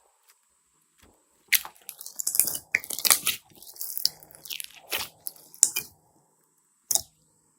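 Close-up crackling, crunching handling sounds in a quick run of short bursts, then a single sharp click near the end.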